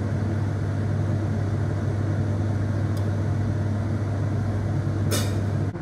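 Steady low electrical hum with a faint rushing noise under it. A single short click comes about three seconds in, and a brief hiss near the end.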